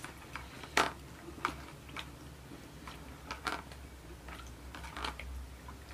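Hands squishing and working a wet paste in a plastic bowl, with irregular soft squelches and sharp little clicks, the loudest just under a second in.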